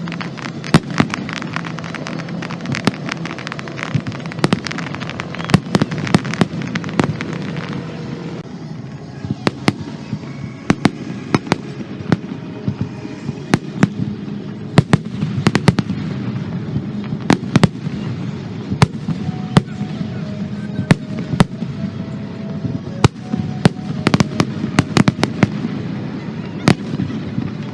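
Fireworks display: sharp bangs and crackling reports go off irregularly, sometimes several in quick succession, over a steady background hum.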